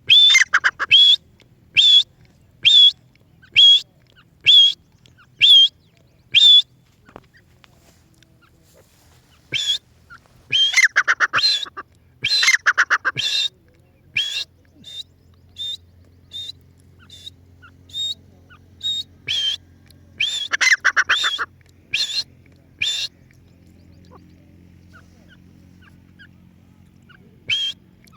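Partridge calling: sharp, repeated call notes about one a second, then faster rattling runs of notes with pauses between them.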